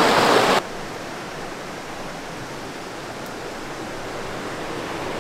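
Steady rushing of a small stream, loud for the first half second, then dropping abruptly to a quieter rush that swells slightly toward the end.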